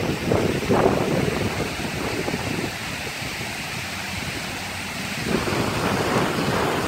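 Wind buffeting a phone's microphone in uneven gusts. About five seconds in, a steady rush of water pouring down a stepped fountain wall comes in under it.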